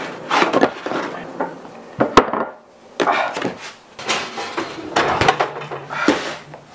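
Kitchen clatter: an irregular series of knocks and bumps as things are handled and set down, with one sharp click about two seconds in.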